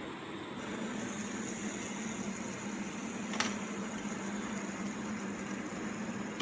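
Fidget spinner whirring steadily on its bearing, with a sharp click a little over three seconds in and another at the end.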